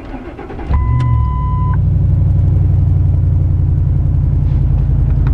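A pickup truck's 5.4-litre three-valve V8 gasoline engine being started: the starter cranks for under a second, the engine catches, and it then runs loud and steady at idle. A steady beep of about a second sounds as it catches.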